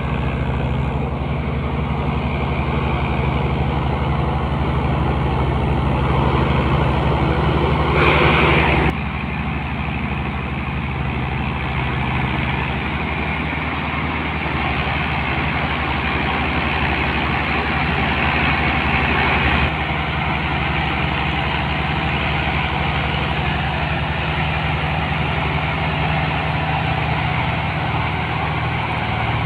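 Diesel tractor engines working hard under heavy load: a Massey Ferguson 385 towing a Fiat 480 and its trolley heaped with sugarcane. The engines drone steadily and low, with a brief louder rush about eight seconds in.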